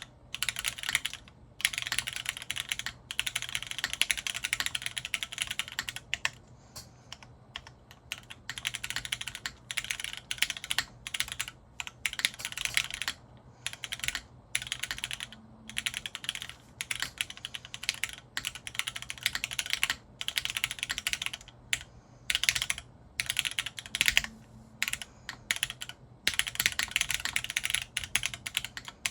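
Typing on a TGR Jane V2 ME custom mechanical keyboard with polished Cherry MX Black linear switches on a polycarbonate plate and GMK keycaps: fast runs of keystrokes broken by a few short pauses.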